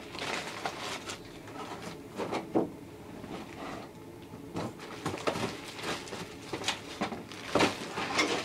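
Plastic bags of model-kit parts rustling and crinkling as they are handled and shifted about in a cardboard box, with irregular sharper crackles, the loudest about two and a half seconds in and near the end.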